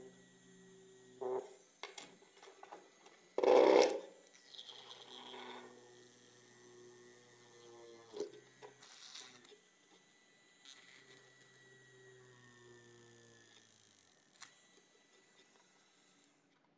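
Handling noise as small plastic and metal drill parts are fitted together by hand: scattered clicks and one loud knock about three and a half seconds in, over a faint hum that comes and goes.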